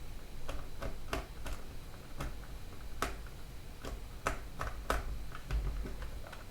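Hand screwdriver working a tight screw out of a plastic heater housing: a dozen or so irregular sharp clicks as the tool turns and shifts in the screw head.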